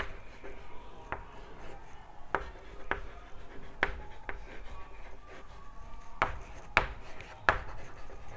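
Chalk writing on a chalkboard: scratchy strokes with about eight sharp taps as the chalk strikes the board, spaced unevenly.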